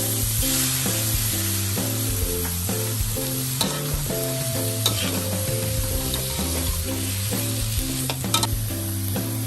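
Food sizzling as it fries in a pan, stirred with a utensil that clicks and scrapes against the pan now and then, over background music.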